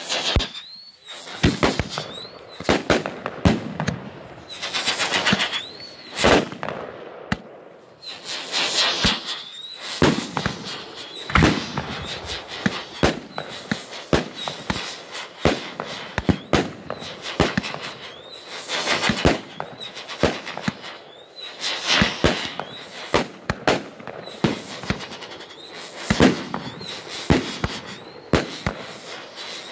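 A 36-shot consumer firework cake firing shot after shot: dozens of sharp bangs in quick succession as the tubes fire and the shells break with reports, with several longer hissing stretches in between.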